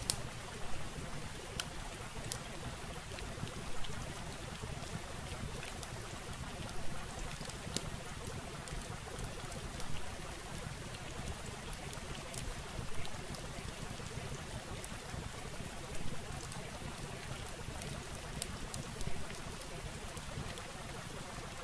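Steady rushing noise, even and unchanging, with scattered faint clicks.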